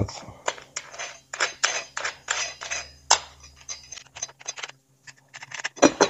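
Small steel parts clicking and clinking at an irregular pace as washers and nuts are fitted by hand onto the bolts of an exercise-bike seat bracket.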